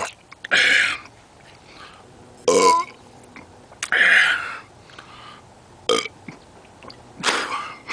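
A man belching repeatedly after chugging a can of carbonated malt drink in one go: about five loud burps, roughly one every one and a half seconds.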